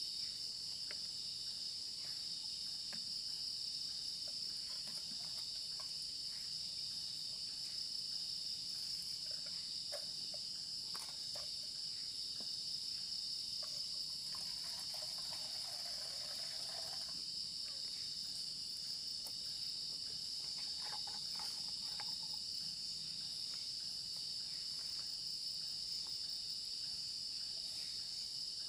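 A steady, high-pitched chorus of night insects chirring in forest, with a few faint clicks and a brief soft rustle about halfway through.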